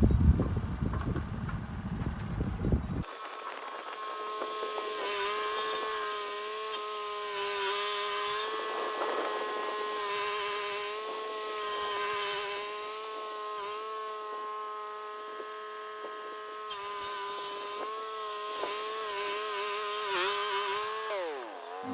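Lucas portable sawmill running in the cut through a red gum log: a low engine rumble, then a steady high-pitched saw whine that wavers slightly and falls in pitch near the end as the mill winds down.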